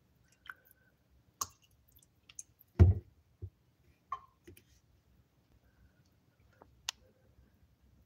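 Light clicks and knocks from handling a plastic creamer bottle while pouring creamer into a ceramic coffee mug, with one dull thump about three seconds in.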